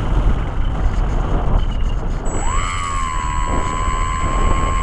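Wind rushing over the onboard microphone of an electric RC plane in flight. About halfway through, the electric motor's whine rises quickly and then holds at a steady pitch as it speeds up.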